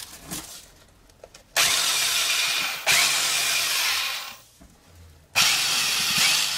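Electric motor of a Toya rotary hammer running when triggered: it winds up and runs for a few seconds, winds up again partway through, stops, then runs once more for about two seconds. The second-hand tool is working.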